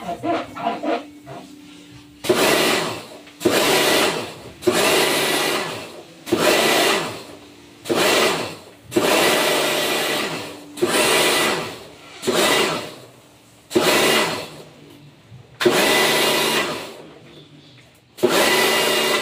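Electric pressure washer spraying water into a split air conditioner's indoor unit in about a dozen short bursts, each about a second long. The pump motor runs with each trigger pull and stops in between.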